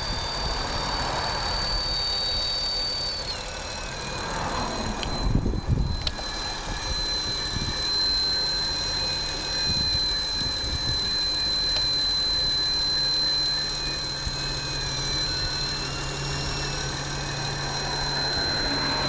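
Acura TL V6 engine running with a steady high-pitched whistle over it, the whistle dropping slightly in pitch about three seconds in, and a brief clatter about five seconds in. The whistle is an air leak that the owner traces to a loose intake manifold cover.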